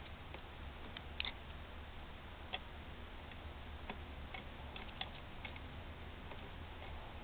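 Scattered light clicks and taps of small tools and rifle parts being handled, a few seconds apart, over a steady low hum.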